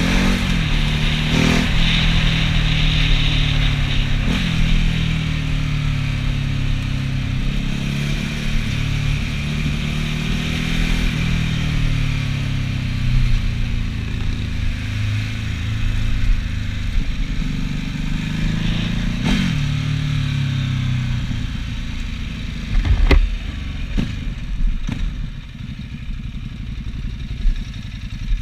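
Motorcycle engine under way, its revs rising and falling again and again through the gears, with wind noise on the microphone. About three-quarters of the way through it drops to a low, steady run as the bike slows, and a few sharp knocks come near the end.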